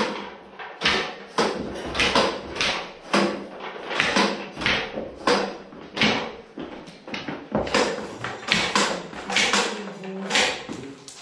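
Long-handled tacker tool driving clips over underfloor-heating pipe into insulation board: a steady series of sharp clacks, roughly two a second.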